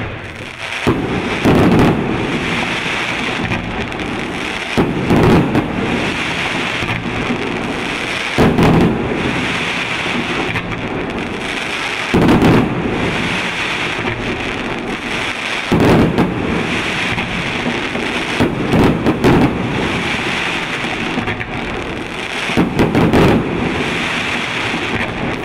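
A 100-shot display fireworks cake with 30 mm tubes firing in a W-shaped pattern: a continuous dense stream of launches and bursts, with louder surges about every three and a half seconds.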